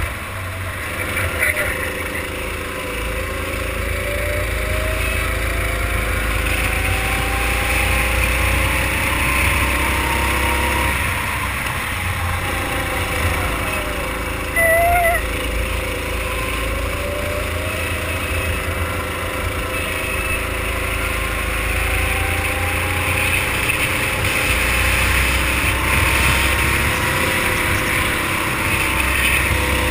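Go-kart engine heard from the driver's seat, its pitch rising and falling again and again as the kart accelerates out of corners and eases off into them. A brief high chirp about halfway through is the loudest moment.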